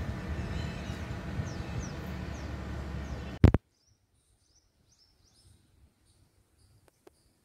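Outdoor ambience: a steady low rumble with small birds chirping high and briefly. About halfway it breaks off with a loud click, and after that it is much quieter, with faint high chirps repeating.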